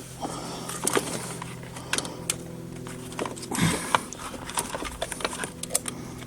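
Small clicks, taps and scrapes of a wire spring and metal clip being worked into place inside a Kenwood Chef mixer's housing, over a steady low hum. A brief grunt a little past the middle.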